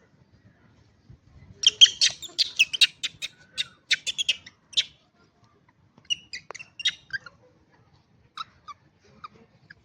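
Monkeys giving rapid high-pitched squeals and chirps: a dense burst of calls about two seconds in, then scattered short chirps.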